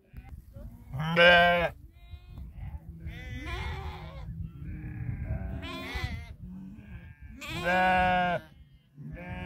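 A flock of sheep and goats bleating: a string of separate calls, two loud drawn-out bleats about a second in and near the end, with quieter bleats between.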